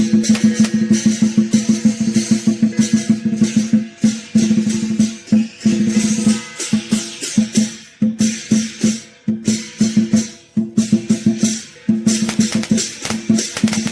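Lion dance percussion: a drum beaten in fast, dense strokes with clashing cymbals over a steady ringing tone. The rhythm breaks off briefly a few times and picks up again.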